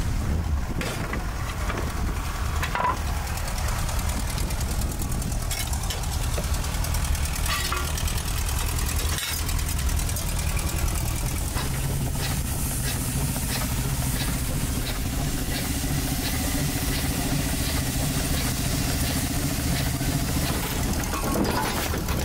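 Steam traction engine running, a steady mechanical rumble with a low hum, and a few short metal clanks in the first half.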